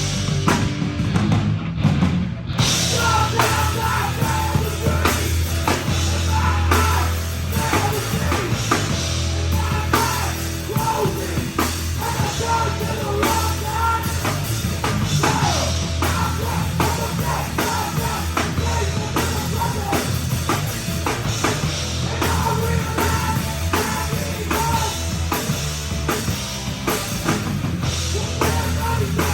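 Live heavy rock band playing a loud, driving song: fast, busy drum kit over distorted guitars and bass.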